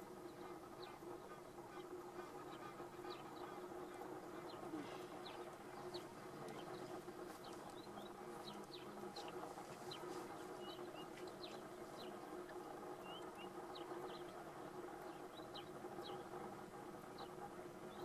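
Faint, short high bird chirps, scattered irregularly throughout, over a steady low hum.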